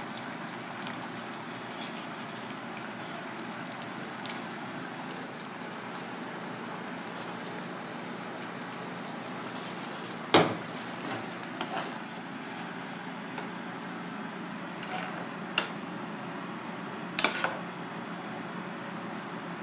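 Sauce simmering in an aluminium pan over a gas burner, a steady hiss and bubbling, with a few sharp clinks of the metal ladle against the pan: one loud clink about ten seconds in and a short cluster of knocks near the end.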